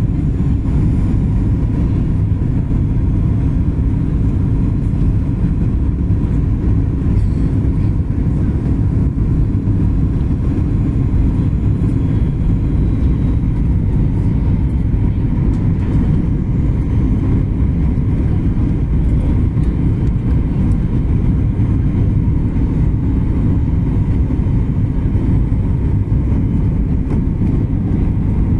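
Airliner cabin noise on final approach: a steady low rumble of the jet engines and airflow, with a faint steady whine.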